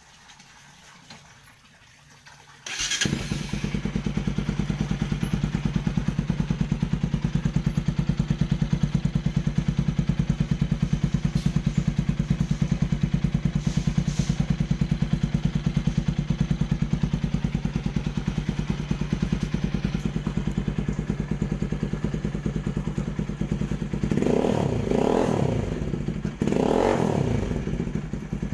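Motorcycle fitted with an aftermarket exhaust pipe starting up about three seconds in and settling into a steady, pulsing idle through the exhaust. Near the end it is revved twice, each rev rising and falling back to idle.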